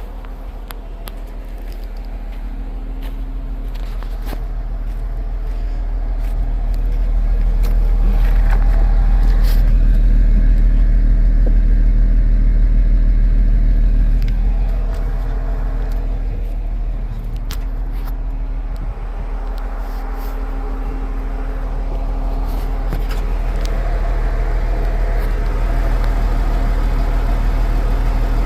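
Off-road 4x4 engine running under load on a rock climb, growing louder over several seconds, dropping off suddenly about halfway through, then running on steadily.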